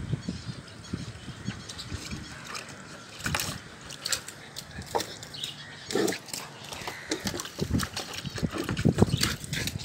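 A puppy splashing with its muzzle dunked in a plastic basin of water: irregular sloshes, splashes and animal noises from the dog, stronger around the middle and near the end.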